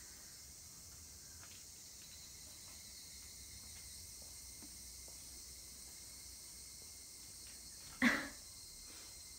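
Faint, steady high-pitched hiss of background noise, broken once near the end by a person's brief vocal sound.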